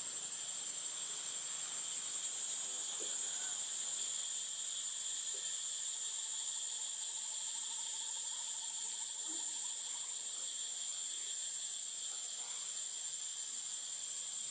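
Steady insect chorus: a continuous high, shrill drone with a second, lower band beneath it, unbroken throughout.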